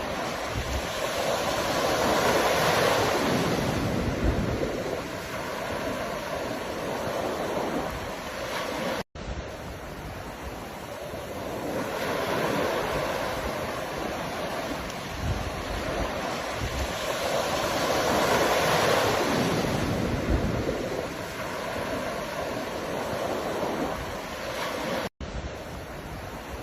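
Ocean surf: waves breaking and washing in, the rushing noise swelling and easing every several seconds. It cuts out to silence for an instant twice, about a third of the way in and near the end.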